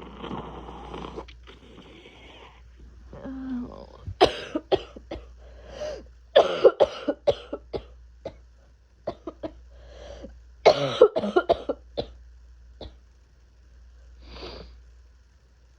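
A person with a feverish head cold coughing in several bouts of short, sharp coughs, after a long noisy breath near the start.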